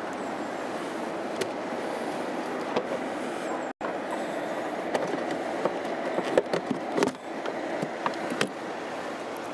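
Steady outdoor background noise with no engine running. In the second half come a series of clicks and knocks as a motorcycle's storage compartment is handled and a plastic tool case is shown.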